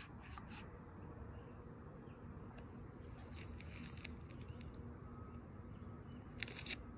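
Quiet room tone with a few faint clicks and a short rustle near the end, from handling a ring-binder photo album.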